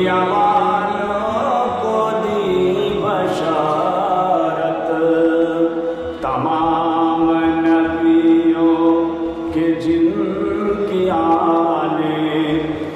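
Man chanting an Urdu naat, an Islamic devotional song, in long drawn-out phrases, holding one note for several seconds around the middle.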